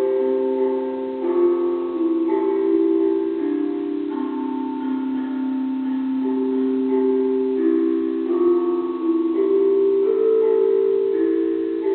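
A jicuridrum, a tuned percussion instrument, played as a slow melody: single struck notes about a second apart, each ringing on and overlapping the next.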